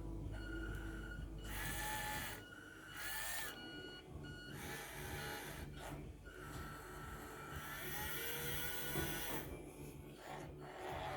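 Small electric gear motors of a radio-controlled toy excavator whining in repeated stretches as the boom, arm and bucket are moved, starting and stopping every second or so, over a steady low hum.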